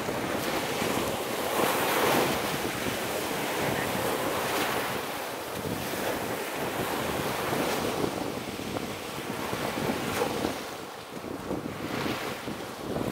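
Choppy sea waves breaking and washing in the shallows in surges every few seconds, with wind blowing across the microphone.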